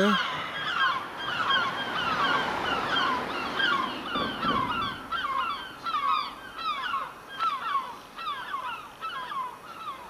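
Several seagulls calling overhead, a quick run of short repeated calls from more than one bird, overlapping.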